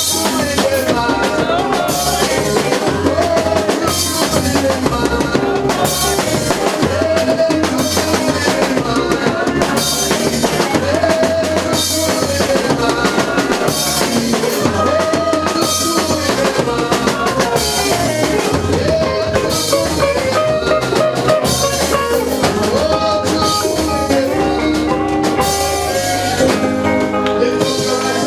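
Live church praise music with a steady drum-kit beat, bass and keyboard, and no singing.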